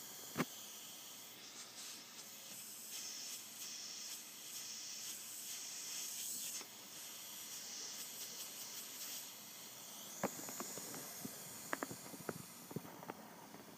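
Pressurised air hissing as it leaks out around a valve fitting in the wall of a soft hyperbaric oxygen chamber, the hiss swelling and easing. A sharp click just after the start and a run of clicks and taps from handling near the end.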